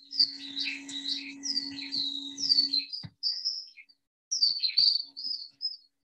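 Skylark song played from a recording: a fast, erratic and random run of high chirping, warbling notes, with a short break about four seconds in.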